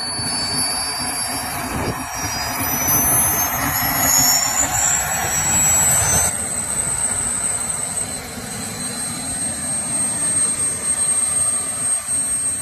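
Twin model jet turbines of an RC F-18 running on the ground with a steady rushing blast. Their high whine climbs in pitch over the first half, then holds steady.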